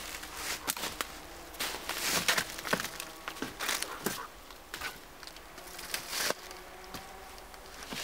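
Dry dead branches knocking and scraping against each other as poles are leaned into a shelter frame, with dry leaf litter rustling and crunching underfoot. Irregular knocks and rustles, the sharpest knock about six seconds in.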